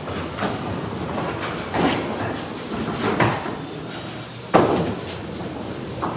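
Candlepin bowling alley noise: a steady rumble of balls rolling down the lanes, with a few clatters and one sharp crack of wood, from a ball or falling pins, about four and a half seconds in.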